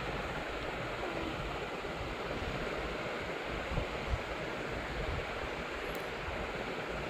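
Steady rushing background noise, with two soft bumps about four seconds in.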